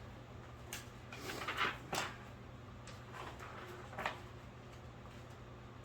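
Handling noises as bench-grinder parts are picked up and set down: a few light clicks and knocks with a short scraping rustle about one and a half seconds in.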